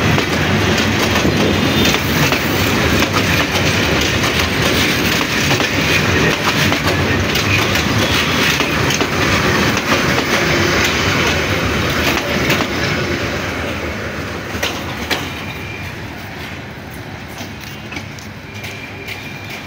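Bangladesh Railway intercity passenger coaches rolling past at close range, a steady rumble with the wheels clacking over rail joints. The noise fades over the last few seconds as the train moves away.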